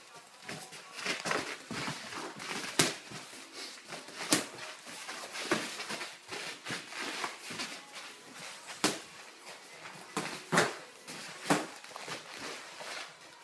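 Light-contact kickboxing sparring: bare feet stepping and shuffling on the ring's foam mat, with irregular slaps and thuds of gloved punches and shin-guarded kicks landing. About five single hits stand out as the loudest.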